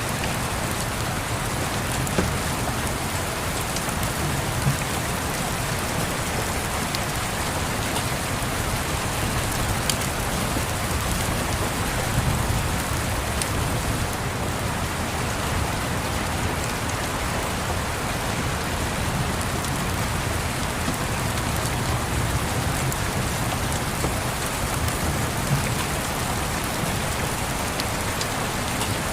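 Steady rain patters on a window, with a fireplace crackling: a few sharp pops stand out now and then over the rain.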